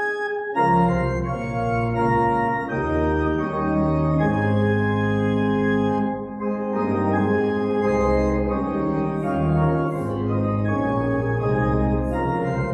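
Church organ playing slow, sustained chords, with deep bass notes coming in about half a second in and the chords changing every second or so.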